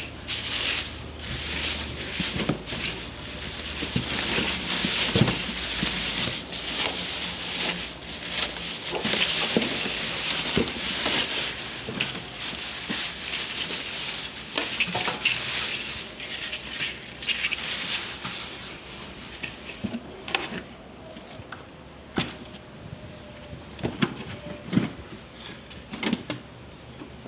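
Packaging being handled during an unboxing: crinkling and rustling with many scattered clicks and knocks, busiest over the first half and sparser near the end.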